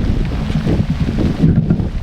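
Wind buffeting the microphone: a loud, uneven low rumble that swells and dips.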